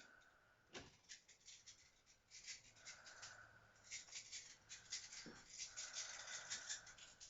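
Faint breathing of a sleeping person, a soft hissing breath about every two and a half seconds, over a dense crackling rustle.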